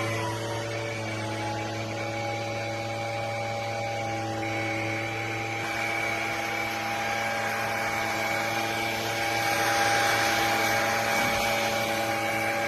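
Bissell PowerClean 200W cordless stick vacuum running steadily with a motor whine over a rushing hiss, just after being switched on; the whine drops slightly and settles in the first second.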